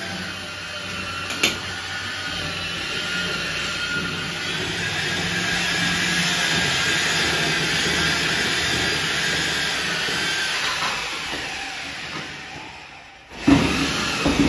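An electric power tool's motor running steadily with a whine that wavers in pitch, fading out over the last few seconds. A single sharp click comes about a second and a half in, and a few loud knocks near the end.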